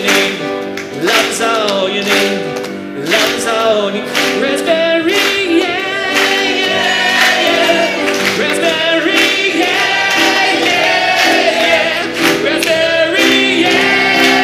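Live song on a grand piano with a man singing, other voices joining in.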